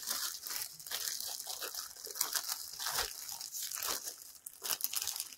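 Packaging crinkling and rustling in irregular crackles, with some tearing, as a parcel is being opened.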